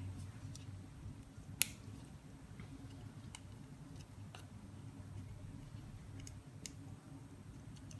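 Light clicks and taps of small plastic and metal phone parts being handled and pressed together, a smartphone LCD screen assembly and its metal plate, with one sharper click about a second and a half in. A steady low hum runs underneath.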